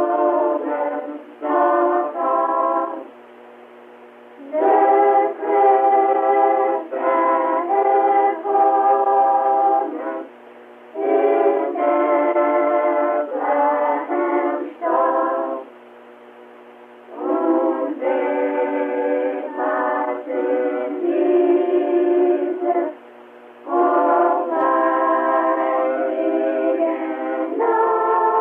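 Christmas caroling from a 1970 home cassette recording: a carol tune in phrases of a few seconds separated by short pauses. It sounds thin, with no bass or treble.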